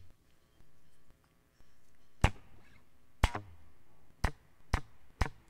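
Faint steady hum from a plugged-in electric guitar's input being recorded. Five sharp clicks cut through it, three about a second apart and then two quicker ones, just before the guitar playing begins.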